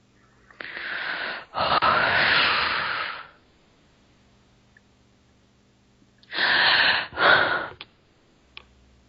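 A person breathing heavily close to the microphone: two long breaths, the second the loudest, then after a pause two shorter breaths.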